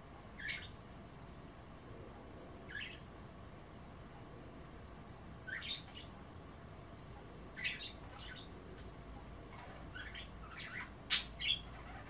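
Pet budgerigars giving short, high chirps: single calls every few seconds, then a quicker run of chirps near the end, the loudest about eleven seconds in.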